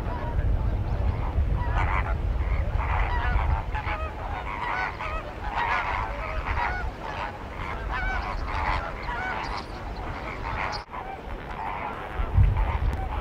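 A flock of flamingos in flight, honking and calling constantly in many overlapping short calls. A low rumble runs under the calls and is strongest in the first few seconds, and a single thump comes near the end.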